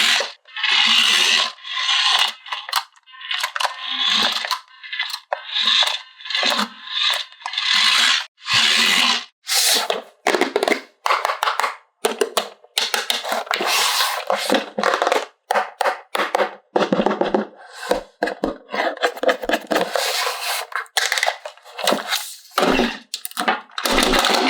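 Toy packaging and plastic playset parts being handled close up: a continuous run of irregular crinkling, tearing, scraping and clicking with short pauses.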